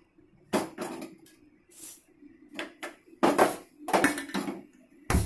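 Aluminium idli pot being set down on a gas stove's metal grate: a string of knocks and scrapes of metal on metal, then a sharp click near the end.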